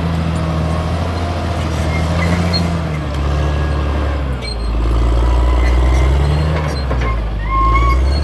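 Caterpillar D6R bulldozer's diesel engine running, its note dropping lower about three seconds in and holding there before rising again near the end. Short high squeaks are heard near the end.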